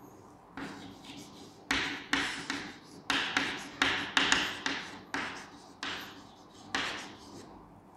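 Chalk writing on a chalkboard: an irregular run of about a dozen short, sharp taps and scrapes as letters are written, loudest in the middle of the run.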